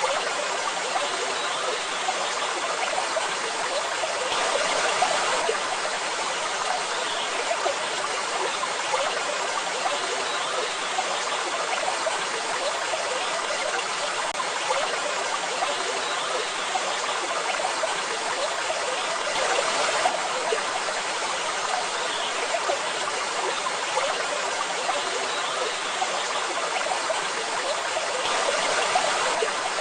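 Waterfall: steady rushing of falling water, swelling slightly a few times.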